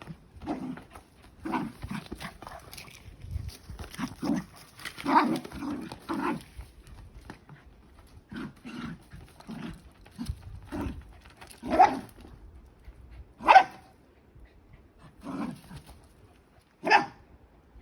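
Dachshund growling and barking in short spells while playing with a ball, with three louder, sharper barks in the second half.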